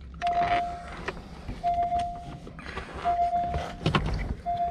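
Porsche Panamera's warning chime sounding a steady single-pitched beep about every second and a half, each beep a little under a second long, with clicks and knocks of plastic console trim being pried at; the loudest knock comes near the end.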